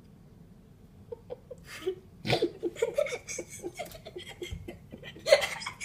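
A person laughing and giggling in short bursts, starting about a second in and loudest near the end.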